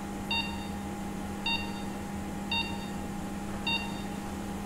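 Patient monitor's pulse-oximetry beep sounding four times, short bright tones about once every second, keeping time with the pulse, over the steady hum of theatre equipment.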